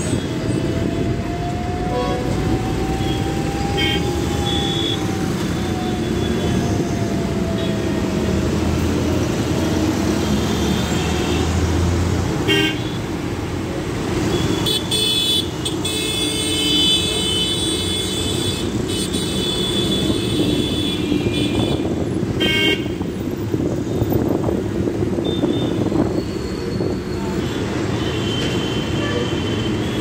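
Inside a city bus moving through traffic: a steady engine and road rumble, with a whine that rises and then falls in pitch over the first several seconds. Vehicle horns honk repeatedly near the middle, along with a few sharp rattles and knocks.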